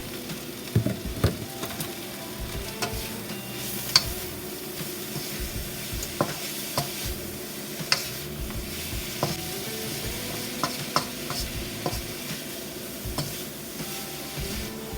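A spoon stirring a simmering, sizzling pot of seasoned green beans, knocking and clinking against the pot several times over a steady sizzle.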